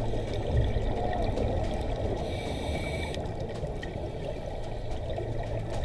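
Underwater sound from a diver's camera: a steady, muffled rush of water with the bubbling of scuba divers' exhaled air, and a brief higher hiss lasting about a second, a little over two seconds in.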